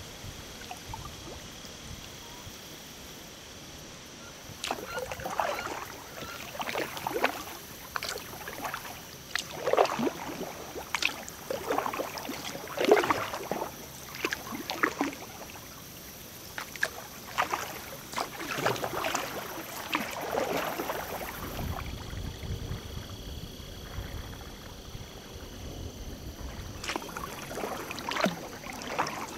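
Kayak paddle strokes in river water: an irregular run of splashes and drips that starts a few seconds in, pauses about two-thirds of the way through and comes back near the end. During the pause there is a low rumble for a few seconds.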